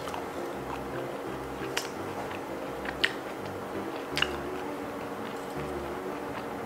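Soft background music with a steady beat, with three sharp clicks in the first half as sauce-coated razor clam shells are handled and the meat is pulled out of them with the fingers.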